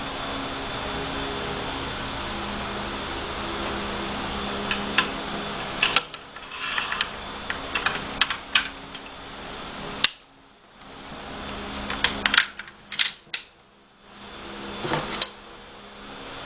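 Sharp metallic clicks and clacks of Zastava M77 rifle parts being handled and fitted together during reassembly, scattered through the second half, over a steady background hum in the first six seconds.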